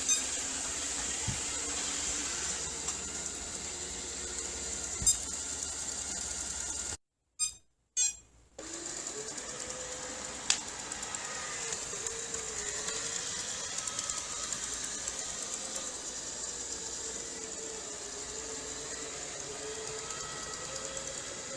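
Robot vacuum cleaner running: a steady motor whine with a high hiss, cutting out briefly about seven seconds in, then going on with a slowly wavering hum. A few sharp clicks.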